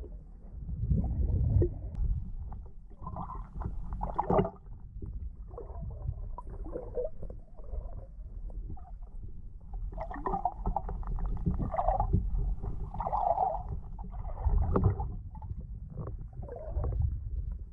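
Muffled underwater water noise recorded underwater: a continuous low rumble of moving water with irregular gurgling.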